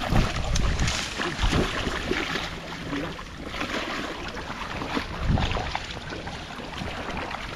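Wading through shallow water in rubber chest waders: irregular sloshing and splashing with each step.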